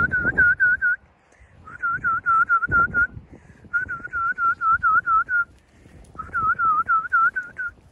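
A person whistling to call puppies: four warbling whistles, each a second or so long, with the pitch wobbling several times a second.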